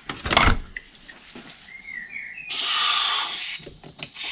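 A short knock, then an aerosol can of cutting fluid spraying in a hissing burst of about a second, with a second burst starting near the end.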